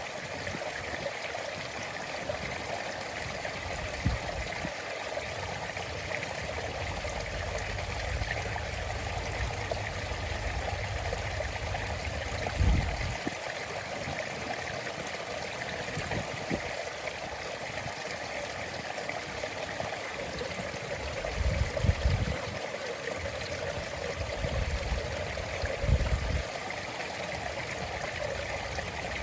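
A stream flowing into the sea: a steady, even rush of running water. A few short low rumbles stand out about 4, 13, 22 and 26 seconds in.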